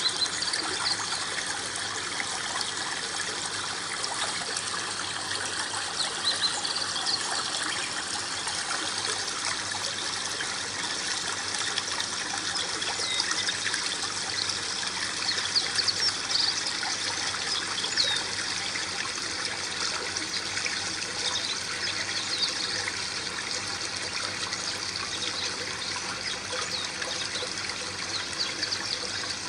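Small waterfall in a home aquaterrarium trickling steadily into the water below, with many small splashing droplets.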